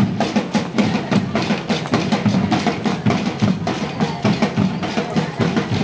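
Marching band drums, snare and bass drum, beating a quick, steady marching rhythm.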